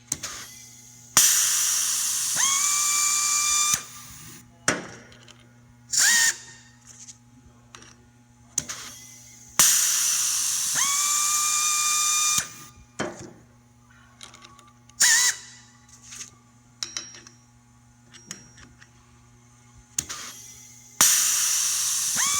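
6703P pneumatic rivet nut tool cycling through installs of 3/8-16 plus body rivet nuts. It makes spells of about three seconds of air hiss with a motor whine that rises and then holds, three of them, about ten seconds apart, with short sharp bursts of air and small clicks in between.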